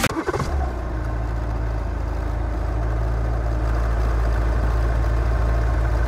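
Car driving, heard from inside the cabin: a steady low rumble of engine and road noise.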